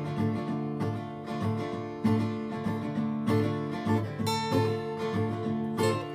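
Acoustic guitar strummed in a steady rhythmic pattern: the instrumental intro of a song, with no voice yet.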